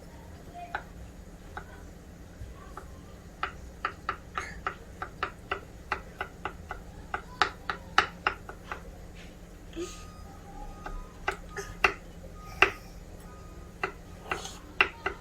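Knife chopping garlic cloves finely: a quick run of sharp taps, roughly three a second, starting a few seconds in, then a few scattered taps.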